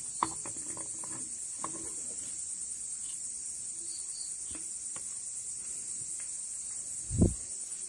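Crickets chirp steadily in the background while a clutch housing is worked by hand onto the gears of a Bajaj Pulsar engine, giving a few light metal clicks and taps. Near the end comes a single dull thump, the loudest sound.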